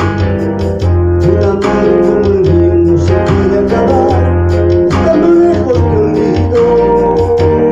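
A man singing a song into a handheld microphone over a backing track led by guitar, holding long notes with a slight waver.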